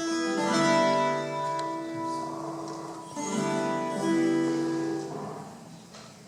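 Tiples strummed together in two long, ringing chords, the first near the start and the second about three seconds in, each left to fade: the opening of an Andean Colombian pasillo.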